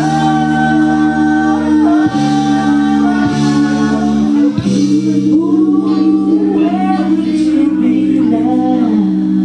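A woman singing into a microphone over loud backing music, with long held chords under a sung line that bends between notes.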